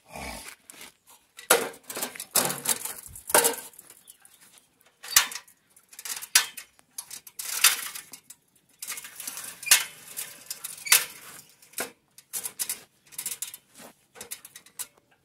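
Aluminium articulated ladder being folded shut: a string of irregular sharp metallic clanks and clicks as its hinged sections are unlocked and swung together.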